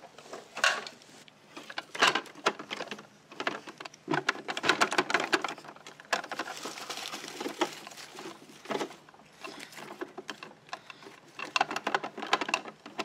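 Plastic toy trucks and small plastic toy trash pieces being handled, loaded and tipped, giving irregular clicks and rattling clatter, with louder bursts about two seconds in, around the middle and near nine seconds.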